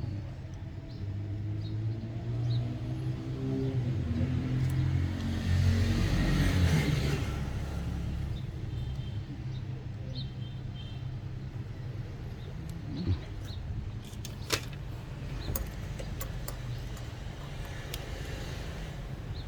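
A road vehicle's engine rumble swells to its loudest about six seconds in and then fades back to a steady low hum. A few sharp clicks follow later.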